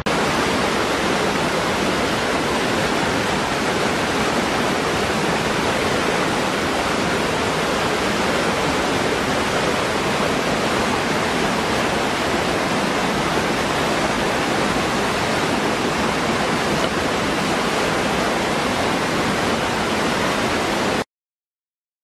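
Small waterfall pouring into a rocky pool: a steady, even rush of falling and splashing water. It cuts off suddenly about a second before the end.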